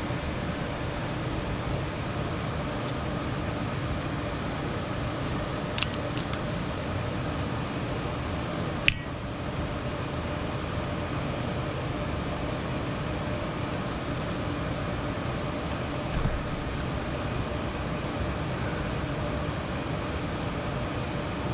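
Steady fan-like background noise with a few short clicks and taps; the sharpest click is about nine seconds in.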